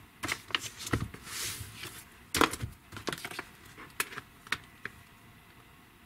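Handling sounds of a paper workbook and a smartphone on a desk: a short rustle of pages and a string of light knocks and clicks, the loudest about two and a half seconds in.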